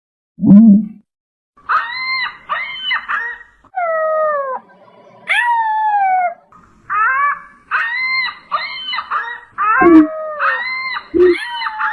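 Giant moa sound effect: a run of howl-like calls, many sliding down in pitch. A short low grunt comes about half a second in, and two more near the end.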